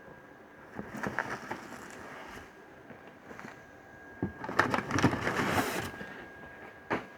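Packaging being handled during an unboxing: a few knocks and taps, then a louder crinkling rustle about halfway through.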